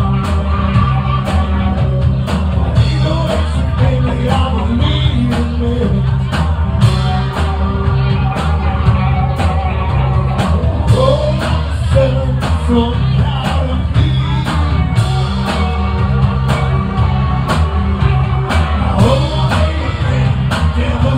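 Live rock band playing: electric guitar and drums with a steady beat, and a singer's voice over them.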